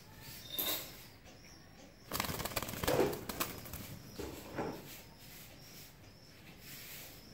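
Silver fantail pigeons: a flurry of wing flapping about two seconds in, lasting about a second and a half, with cooing and a couple of shorter wing or vocal sounds around it.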